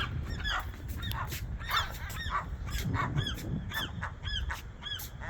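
Gulls giving rapid, repeated alarm calls, short arched cries about two to three a second, as they mob and dive at a person on a roof. A low rumble runs underneath.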